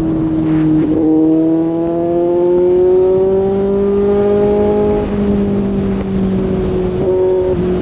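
Kawasaki Z800 inline-four motorcycle engine running through its exhaust under way. The engine note rises slowly for several seconds, then holds, with brief dips in pitch about a second in and again near the end.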